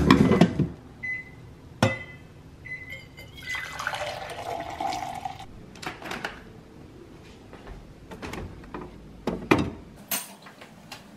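Coffee poured from a drip coffee maker's glass carafe into a metal tumbler, after a clack as the carafe is handled and a few short beeps. Near the end a fridge door clicks open and creamer is poured into the cup.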